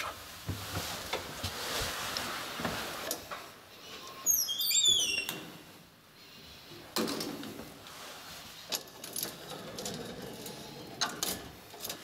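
Gates of an original Graham Brothers lift being worked by hand. A metal hinge gives a short squeak about four seconds in, then the handle and latch of the wire-mesh gate clunk and click several times.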